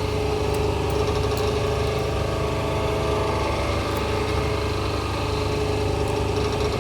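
Hydraulic hose crimping machine's motor and pump running steadily: a low hum with a steady whine over it.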